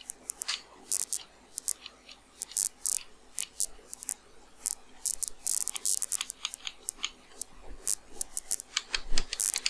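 Computer keyboard keys clicking in irregular bursts of typing, with short pauses between clusters of keystrokes.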